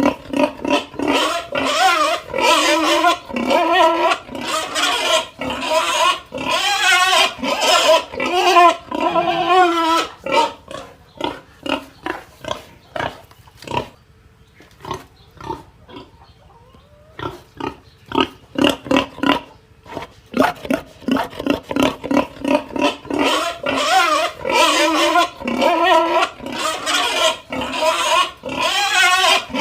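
A pig squealing and grunting in rapid, repeated calls that bend in pitch. The calls drop to a lull of about three seconds around the middle, then start up again.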